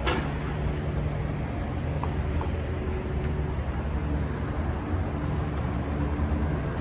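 Downtown street traffic: a steady low rumble of idling and passing vehicle engines. A sharp click sounds right at the start.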